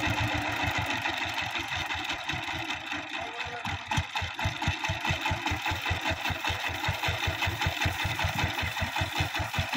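Single-cylinder diesel engine of a two-wheeled power tiller running, easing off in the first few seconds and then idling with an even chugging beat of about five or six a second.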